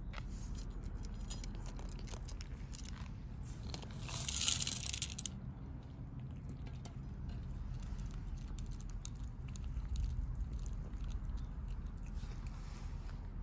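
Cats chewing dry food: a run of small crisp crunches over a steady low rumble, with a brief louder rustling hiss about four seconds in.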